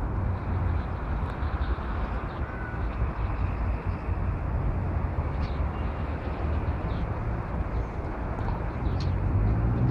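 Steady outdoor background noise, mostly a low rumble with a hiss over it, with a few faint ticks.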